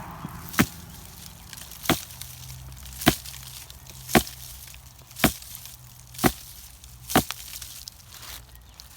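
Seven sharp chopping strokes from a hand garden tool, evenly paced a little over a second apart, while potato foliage is cleared from a grow tote.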